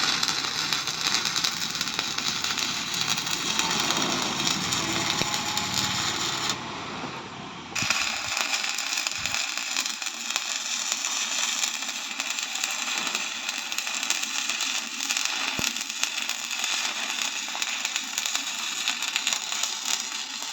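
Electric arc welding: the arc crackles and sizzles steadily. It stops for about a second some seven seconds in, then is struck again and runs on.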